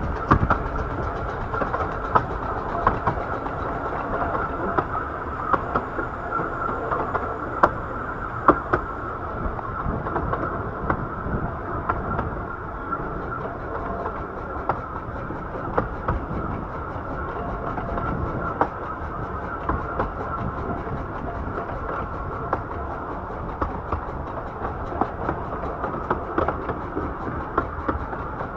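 A 15-inch gauge miniature railway train running along the track: a steady rumble with irregular sharp clicks of the wheels over the rails.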